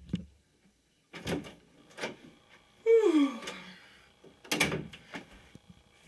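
A few knocks and thumps, and about three seconds in a short, loud vocal sound from a boy that falls in pitch, like a groan.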